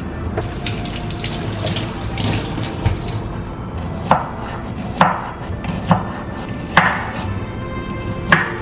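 Tap water running into a stainless steel sink while vegetables are rinsed under it. About four seconds in, a knife starts chopping shallots on a wooden cutting board: five sharp chops, roughly one a second. Music plays underneath.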